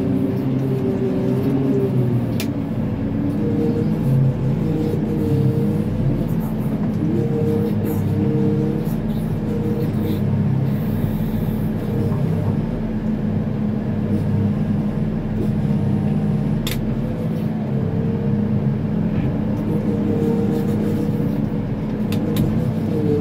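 Manitou MLT 737 telehandler's diesel engine running, heard from inside the cab, its pitch rising and falling several times as the boom lifts and sets a big square straw bale onto a stack. A few sharp clicks sound over it.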